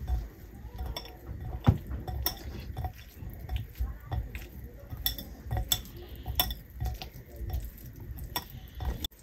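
Spoon stirring paneer cubes through a thick yogurt-and-spice marinade in a bowl, with irregular clinks and scrapes of the spoon against the bowl.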